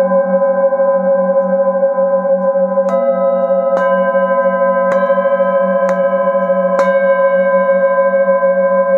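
Singing bowl held on the palm and tapped with a mallet five times, about one tap a second from about three seconds in, each tap renewing a steady ringing of several tones whose lowest tone wobbles in a slow beat.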